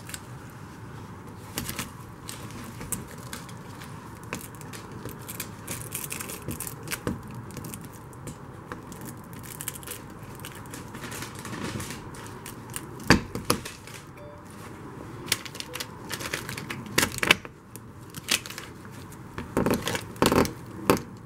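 Clicks, scrapes and knocks of a plastic windshield clip being worked by gloved hands around the metal roof-support bar of a golf cart, with a few sharper knocks in the second half and the loudest cluster near the end.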